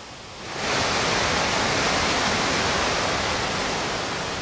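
Steady roar of the High Force waterfall on the River Tees, swelling in about half a second in and easing slightly near the end.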